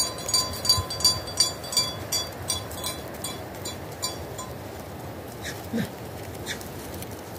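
A small metal livestock bell on a grazing sheep or goat, jingling in quick irregular strikes, about two to three a second, that fade out after about four seconds. A few short high chirps follow near the end.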